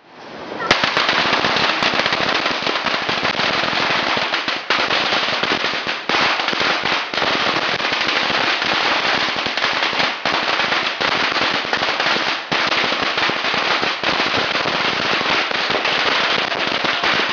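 Fireworks lit on the ground, going off as a loud, dense, unbroken crackle of rapid pops that starts under a second in and keeps going.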